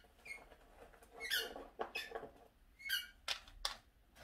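A German Shepherd squeezing a squeaky ball toy in its jaws, giving about three short high squeaks a second or more apart, with a few light clicks in between.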